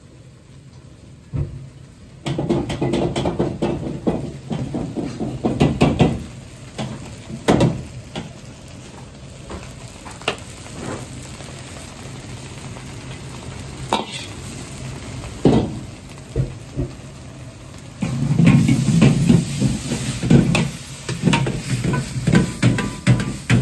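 Fried rice sizzling in a large wok over a gas burner while a metal ladle scrapes and knocks against the wok as it is stirred and tossed. The stirring is busiest from about two seconds in and again from about eighteen seconds, with scattered single knocks in between.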